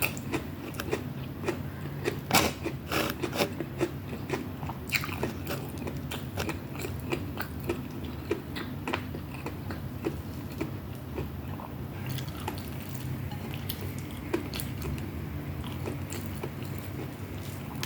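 Close-miked chewing and biting of food, with crisp crunches that come thickest in the first five seconds and thin out later. A steady low hum runs underneath.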